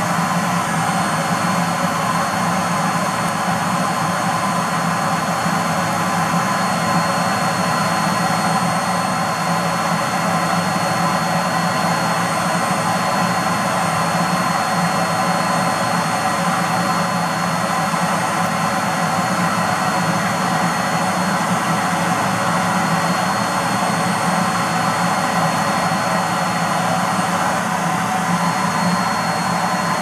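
A household vacuum cleaner's motor running steadily at full suction through its hose, a loud even rush of air with a thin high whine.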